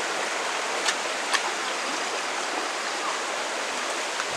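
Steady rush of flowing water, like a stream or waterfall, with two faint clicks about a second in.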